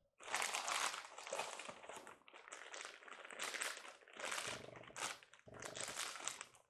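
Packaging crinkling and rustling in irregular bursts as a model train tender is unwrapped from its box.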